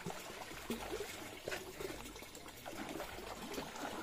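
Water trickling faintly.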